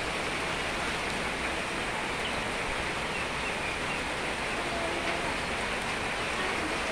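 Steady massed din of a large flock of broiler chickens in a poultry house, a few single short peeps standing out from the constant murmur.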